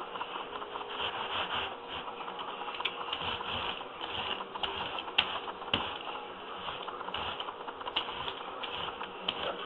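Scratchy rustling and scraping of hands and tools working a carpet patch, in uneven bursts, with a few sharp clicks along the way.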